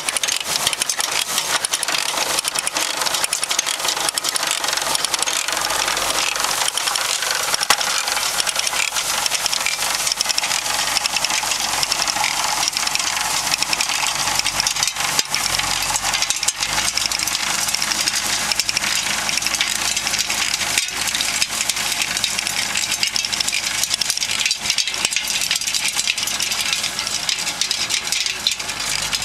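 PTO-driven manure spreader running: its drive chains, sprockets, gears and cam clatter and rattle steadily as they turn the rear auger and the floor conveyor. A tractor engine idles beneath the rattle.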